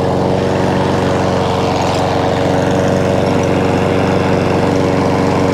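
Einhell self-propelled petrol rotary lawn mower with a Chinese-made single-cylinder engine, running steadily at an even speed with the blade turning.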